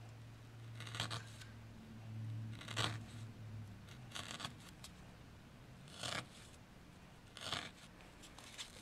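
Felting needle stabbing slowly into a felted wool ball to tack down yarn, giving short scratchy pokes about one every second or two.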